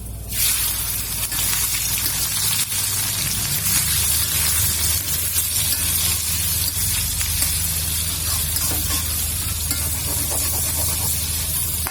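Food sizzling loudly in hot oil while being stir-fried, the sizzle starting suddenly about a third of a second in as the ingredients go into the pan.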